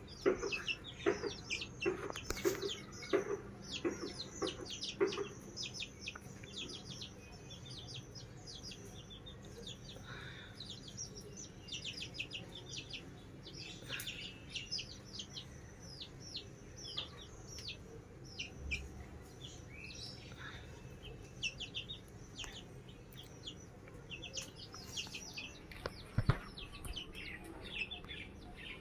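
Baby chicks peeping: many short, high-pitched cheeps in quick succession, coming in bouts.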